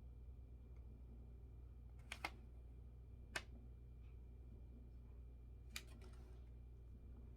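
A few sharp clicks and taps from the parts of a Whitmor drying rack being handled and fitted together: two close together about two seconds in, one a second later, and one near the end followed by a brief rustle, over a low steady hum.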